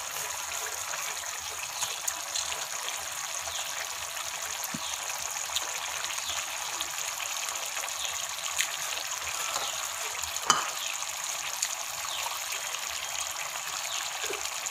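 Spicy prawn masala gravy sizzling and bubbling in a metal pan as raw prawns are stirred in with a slotted spoon. One sharp tap of the spoon comes about ten seconds in.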